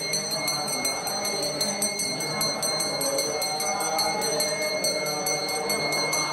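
Brass puja hand bell rung rapidly and without pause during the fire ritual: a steady high ringing tone struck several times a second.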